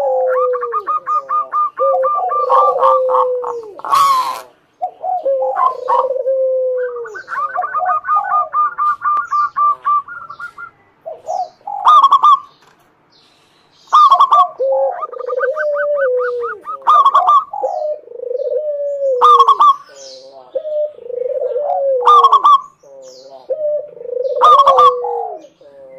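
Zebra dove (local Indonesian perkutut) calling: repeated phrases of fast, stuttering short notes alternating with lower, falling coos. A sharp click sounds about four seconds in, and the calling stops briefly a little past the middle.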